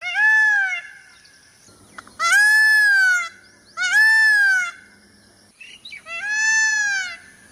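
Peacock calling: four loud calls, each about a second long, arching up then down in pitch, with short pauses between them.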